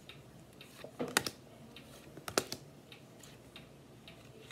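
Tarot cards dealt one at a time onto a wooden tabletop, landing with light taps and clicks: the sharpest about a second in and again near the middle, with a few fainter ones after.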